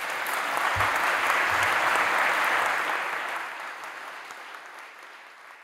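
Audience applauding in a large hall, a dense steady clapping that dies away over the last couple of seconds.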